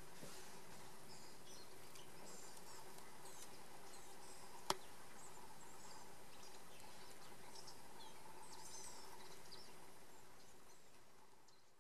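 Swamp ambience: many small birds chirping in short, high calls over a steady low hum, with one sharp click a little before halfway, fading out near the end.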